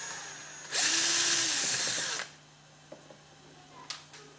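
Small electric screwdriver running for about a second and a half, backing out a screw that holds a side plate on a small magnetic milling table. A sharp click follows near the end.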